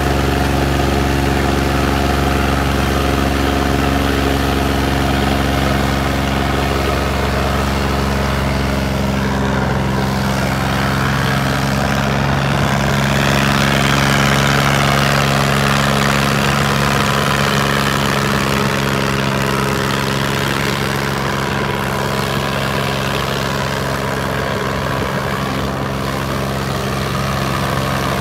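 Sonalika DI 35 tractor's diesel engine running steadily under heavy load while dragging a disc harrow through soil, a constant engine drone with even tones. A hiss swells around the middle.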